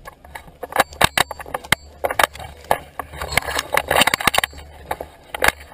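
Handling clatter from a jammed Stoeger P350 pump shotgun carrying a barrel-mounted camera: a run of irregular sharp knocks and clicks, with dry grass and brush rustling against the gun about halfway through.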